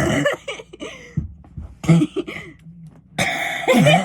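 A person coughing in three harsh bursts: one at the start, a short one about two seconds in, and a longer one of about a second near the end.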